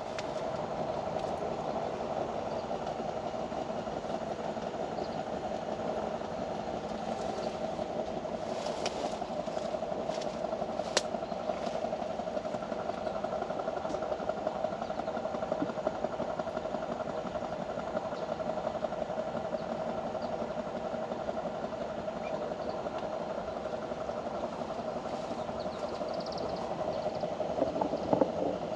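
Steady outdoor ambient rushing noise, with a few faint clicks scattered through it.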